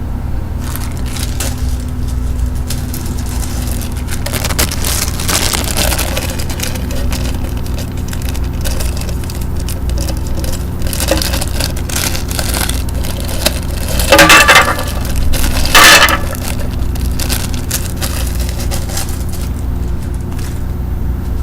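Bubble wrap being handled and crinkled, with scattered small crackles and pops, then two louder bursts of crushing and popping about two-thirds of the way through.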